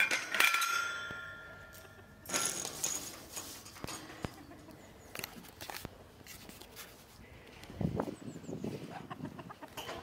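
A flock of chickens and geese calling as they hurry up expecting food: the loudest calls come in the first second or so, then scattered clucking with occasional knocks.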